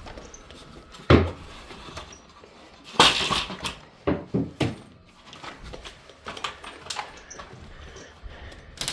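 A few sharp knocks and thuds, with a short noisy scraping burst about three seconds in; no power tool is running.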